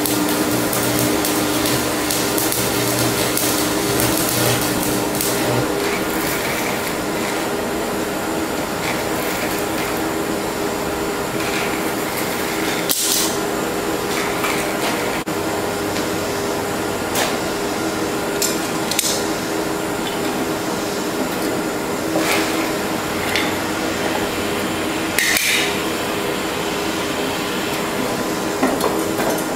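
Steady hiss of a propane torch heating a cast iron exhaust manifold, with a stick-welding arc crackling as it lays nickel rod for the first few seconds. After that, a handful of scattered sharp metallic taps.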